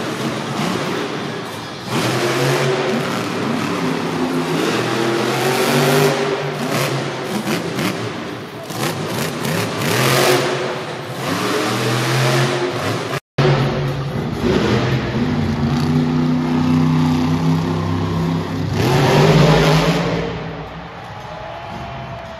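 Monster truck's supercharged V8 engine revving hard, its pitch climbing and falling again and again. The sound cuts out for an instant a little past halfway.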